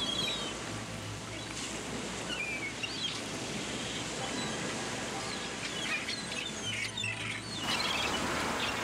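Small birds chirping: short, high calls scattered through, over a steady background noise.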